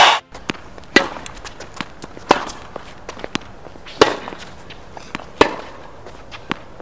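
Tennis balls being struck with rackets and bouncing on an indoor hard court: sharp pops about every second and a half, with fainter knocks in between.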